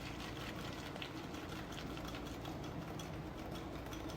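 Egg yolks and sugar being stirred by hand in a bowl: soft, irregular scraping clicks of the utensil against the bowl over a steady low hum.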